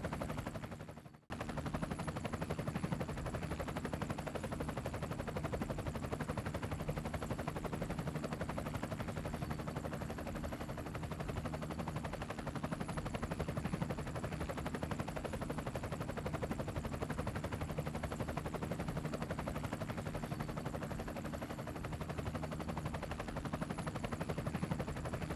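Helicopter rotor and engine noise heard through the aircraft's onboard audio, a steady fast chopping with a hum underneath. It cuts out briefly about a second in.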